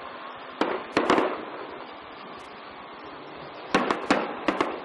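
Aerial firework shells bursting: two bangs about a second in, then a quick cluster of three or four bangs near the end, each with a short ringing tail.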